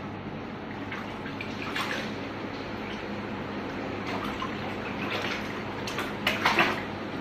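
Water splashing in a plastic bucket as a toddler slaps it with his hand, in short bursts, loudest about six seconds in.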